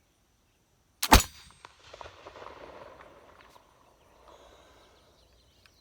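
Flintlock pistol: one sharp, loud crack about a second in, followed by a fainter noise that fades over the next couple of seconds.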